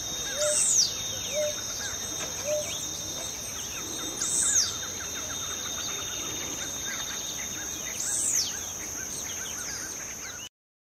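Countryside ambience of birds calling over a steady high drone of insects. A high, arching bird call repeats three times, about four seconds apart, among short lower notes and scattered chirps; the sound cuts off abruptly near the end.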